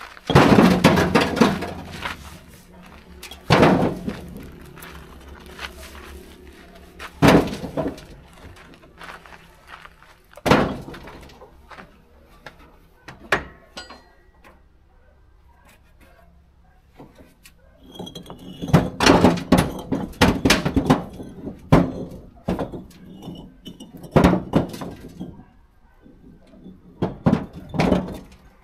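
Irregular knocks and clatter of hard objects being handled, with a few loud bangs spaced a few seconds apart and a busier run of knocking later on.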